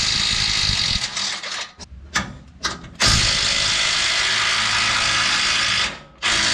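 DeWalt cordless impact wrench hammering on a front-suspension bolt. It runs in bursts: one of about a second, a few short blips, then one long run of about three seconds.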